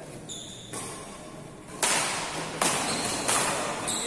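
Badminton rackets striking a shuttlecock in a fast rally: a run of sharp hits, roughly one every three-quarters of a second, the loudest from about two seconds in.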